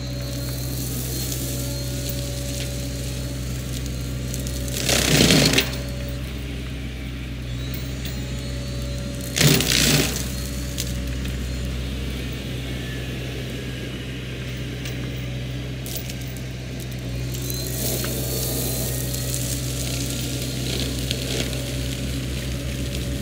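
Sany SY50U mini excavator's diesel engine and Mongo hydraulic flail mulcher running steadily. Twice, about five and ten seconds in, the mulcher head bites into brush and wood with a loud, short burst of noise. A rougher, louder cutting sound comes in over the last few seconds.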